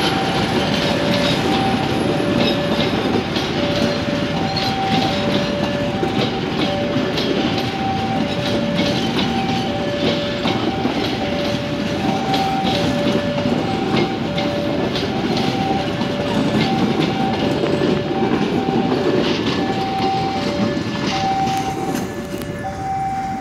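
A passenger train rolls past close by, its wheels rumbling and clicking over the rail joints. Over it a level-crossing warning signal sounds an alternating two-note electronic tone, about one two-note cycle a second.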